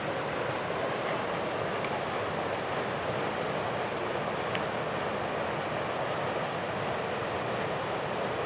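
Steady rushing of a fast-flowing stream.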